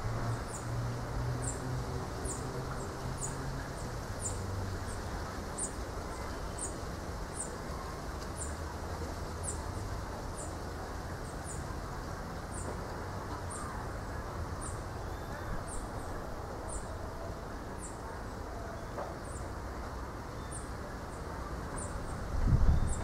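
Outdoor village ambience of wind in coconut palms: a steady rustling wash, over which a small animal gives a short high chirp about twice a second, very regularly. A low hum fades out in the first few seconds, and a brief low rumble comes near the end.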